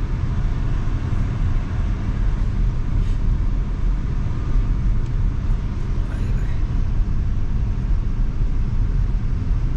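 Swaraj 733 FE tractor's three-cylinder diesel engine running steadily.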